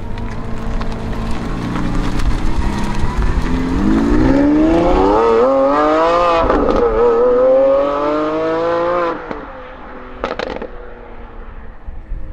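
Lamborghini Aventador SVJ's V12 idling and then pulling away under hard acceleration: revs climb through one gear, shift about six and a half seconds in, and climb again. The driver lifts off about nine seconds in, followed by a few exhaust crackles as the car recedes.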